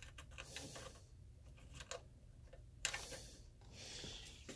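Faint handling noise as a tube-amplifier chassis is moved about on a shelf: light clicks and taps, with a short scrape about three seconds in.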